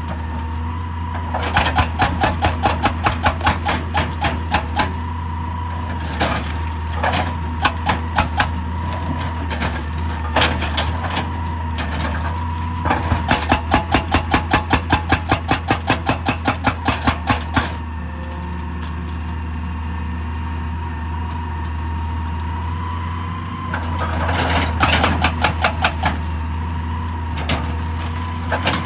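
Excavator-mounted hydraulic rock breaker hammering rock in several bursts of rapid blows, about five a second, over the steady running of the excavator's diesel engine.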